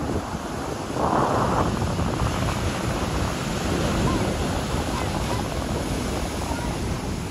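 Ocean surf breaking and washing up a sandy beach, with wind buffeting the microphone; the surf grows louder about a second in.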